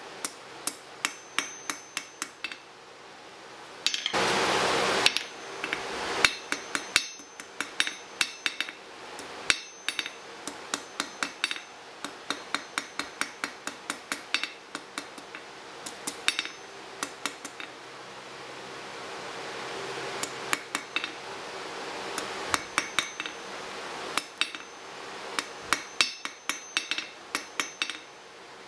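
Hand hammer striking metal on a steel anvil in runs of blows, about three a second, each strike ringing briefly. About four seconds in, a loud rush of noise lasts about a second, and a fainter rushing noise swells in the background past the middle.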